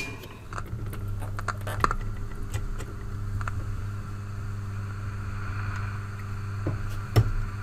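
Grundig Trento valve radiogram putting out only a low steady mains hum through its speakers, with a few light clicks as the volume knob is turned and a knock near the end. The set is not working at all after its two ECLL800 output valves were swapped over.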